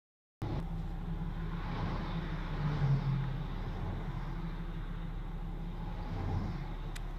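Road traffic: a steady rumble of vehicles on the highway, swelling as vehicles pass about three seconds in and again just after six seconds. The sound cuts in suddenly about half a second in.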